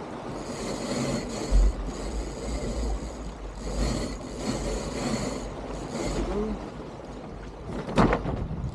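Water rushing and splashing along the hull of an Elan 310 sailboat under way, with gusts of wind buffeting the microphone. A single sharp knock comes about eight seconds in.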